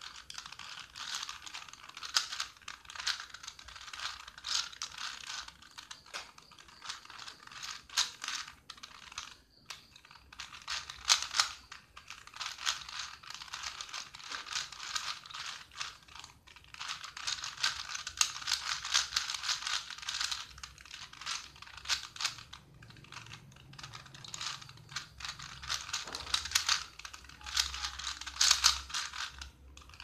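4×4 Rubik's cube being turned rapidly by hand: a continuous clatter of plastic layers clicking as they turn, broken by a few short pauses.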